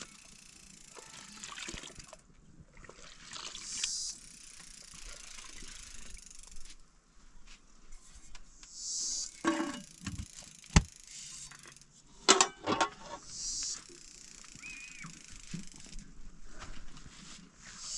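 Liquid ladled and poured in metal pots and bowls, several short pours about every four seconds, with a sharp knock and a quick run of ringing clinks of metal pots and utensils about ten to thirteen seconds in.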